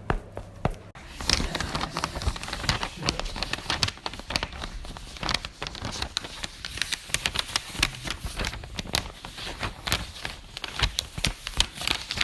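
Dense crackling and crinkling, many sharp clicks over a rustling noise, starting about a second in after a few sparser clicks.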